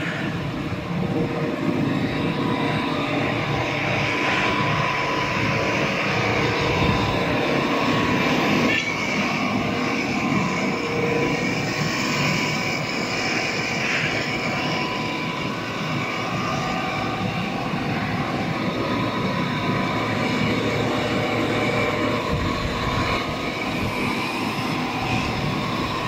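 Steady machinery noise in a factory workshop: a continuous mechanical din with faint steady tones running through it.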